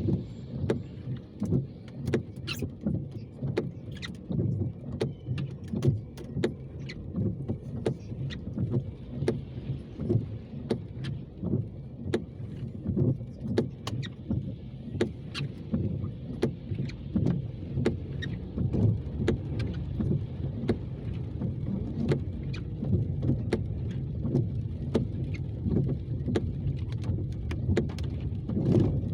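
Car driving on a wet road, heard from inside the cabin: steady low road rumble and tyre hiss, with scattered sharp ticks.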